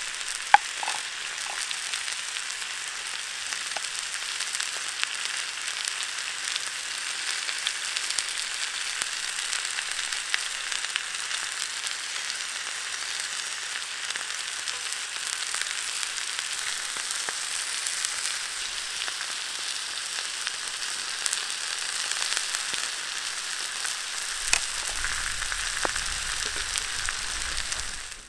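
Steak sizzling and frying in a black pan over a campfire: a steady sizzle with many small scattered pops and crackles.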